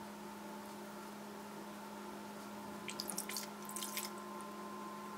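Steady low hum of room tone, with a brief run of faint sharp clicks about three to four seconds in.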